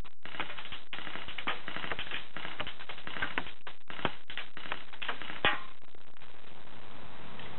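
Airsoft BBs striking a board and a skateboard at the target: a quick, irregular scatter of sharp clicks and ticks that stops about five and a half seconds in, over a steady hiss.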